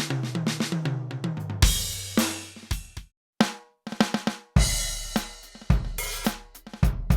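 Millenium MPS-750 electronic drum kit played through its sound module: a tom fill stepping down in pitch, ending on a crash cymbal. After a brief break, a beat with bass drum, snare and cymbals starts.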